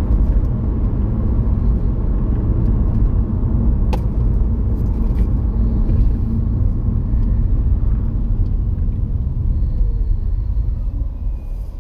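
Steady low road and engine rumble from inside the moving test car, received over FM CB radio and played through the Midland 2001 chassis's extension speaker. It sinks away near the end.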